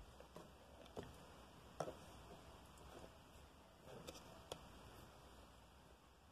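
Mostly quiet, with several faint clicks and knocks and a little rubbing right at the microphone, the sharpest about two seconds in: handling noise as skin and clothing brush against the recording phone and it is moved.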